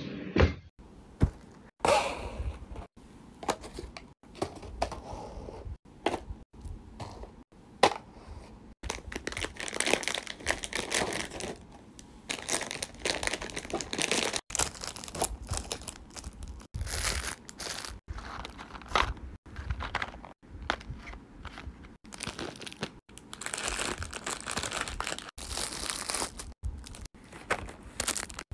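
Crinkling of plastic snack packets as they are handled and set down into a drawer, in bursts broken by many sudden short gaps.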